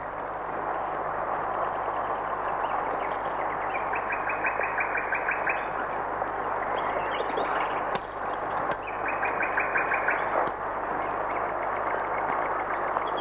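Steady rush of a flowing river, with a bird singing twice in a fast run of short repeated notes, about four seconds in and again about nine seconds in.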